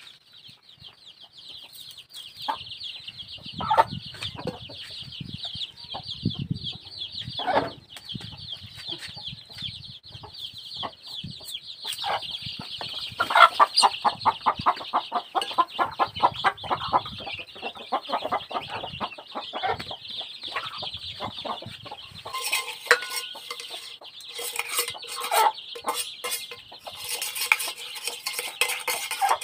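Metal basin and utensils clinking and scraping as raw squid is handled and rubbed in the basin, then sharper clinks of a spoon against a metal cup. Chickens cluck around it, and a steady high-pitched drone runs underneath.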